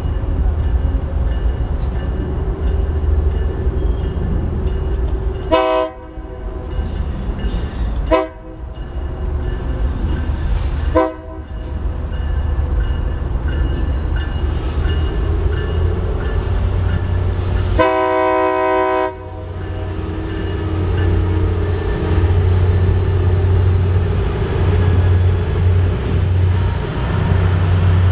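BNSF diesel locomotive's multi-chime air horn sounding four blasts, three short and then one longer, over the steady low rumble of the approaching and passing train.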